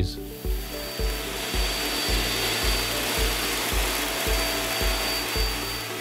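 Hoover upright vacuum cleaner running as it sucks up rice grains from a hardwood floor: a steady rush of air with a thin high whine. Background music with a steady beat plays underneath.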